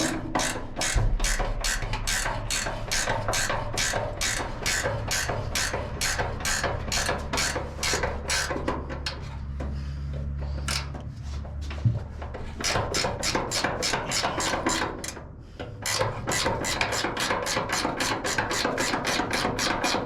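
Background music with a steady, quick beat of about three to four hits a second over a deep bass line. The beat breaks off briefly twice, about halfway through and near three quarters of the way through.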